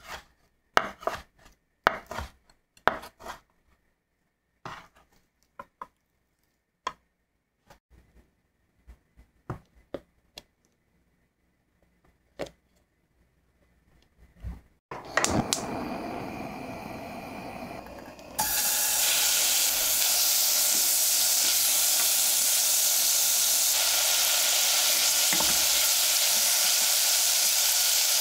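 A chef's knife chopping raw bacon on a wooden end-grain cutting board: a run of sharp, uneven knocks, one or two a second. About halfway through, diced bacon starts sizzling steadily in a stainless steel pot as its fat renders out, and the sizzle turns louder a few seconds later.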